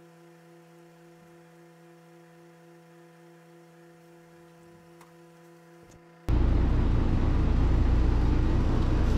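A faint steady hum gives way, about six seconds in, to a loud steady rushing noise that starts abruptly and is heaviest in the low end.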